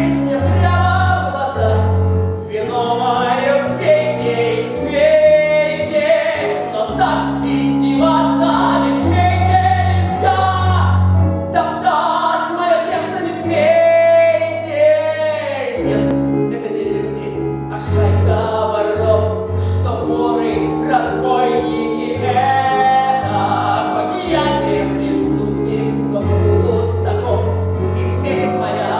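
A song: singing voices, a woman's among them, over instrumental accompaniment with held bass notes that change every second or two.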